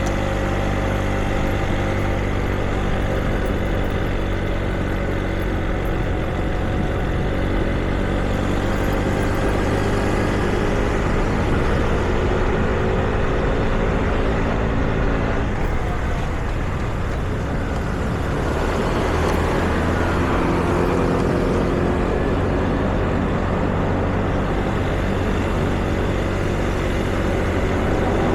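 Street traffic: vehicle engines running close by, their pitch drifting slowly as they idle and move off, over a steady traffic rumble.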